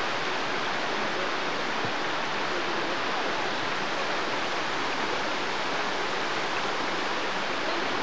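A small waterfall cascading over a rock ledge: a steady, even rush of water.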